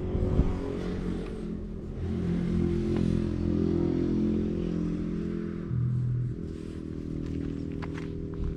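Domestic cat purring right at the microphone as it is stroked, a low steady rumble whose pitch shifts now and then; near the end there are a few light scratches of fur rubbing against the hand.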